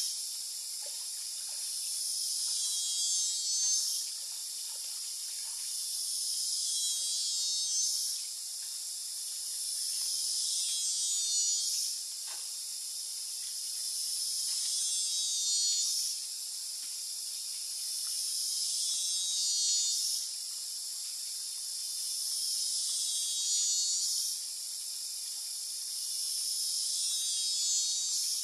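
Cicadas buzzing high-pitched in a chorus that swells and then cuts off sharply about every four seconds, again and again.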